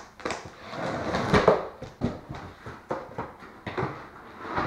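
Cardboard shipping box being opened: the tape along its seam slit, then the flaps and a foam packing sheet pulled back, with scraping, rustling and a few sharp knocks, loudest about a second and a half in.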